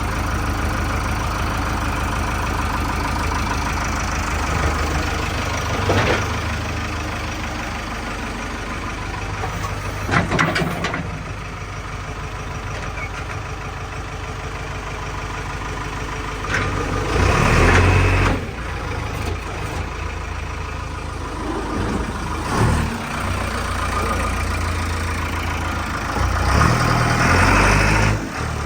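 JCB backhoe loader's diesel engine running steadily while digging and loading mud, with a few knocks early on and the engine working harder, louder, twice: about two-thirds of the way through and again near the end.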